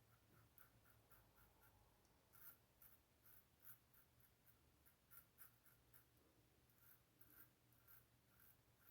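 Faint, short scraping strokes of a safety razor (Above the Tie R1 with a Treet Platinum blade) cutting stubble against the grain, coming in irregular runs of a few strokes a second.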